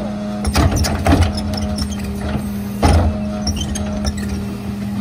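Heil rear-loader garbage truck running with a steady hum while its cart tipper dumps a trash cart into the hopper. Several heavy bangs come as the cart is shaken out, about half a second in, again a second in, and near three seconds.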